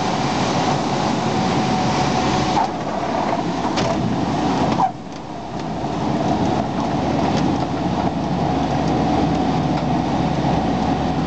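Cockpit noise of an Aeroprakt Foxbat A22 microlight on its landing: steady engine and airflow noise. It drops off abruptly about five seconds in, then builds back up.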